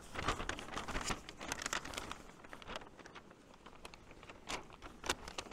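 Paper map being unfolded and handled, crinkling and rustling in irregular bursts, busiest in the first couple of seconds and again near the end.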